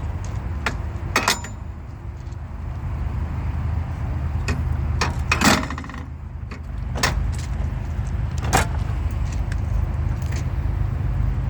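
Scattered sharp metallic clicks and clanks from work on a railway switch machine and its rods, the loudest a short rattling clank about five and a half seconds in, over a steady low engine-like rumble.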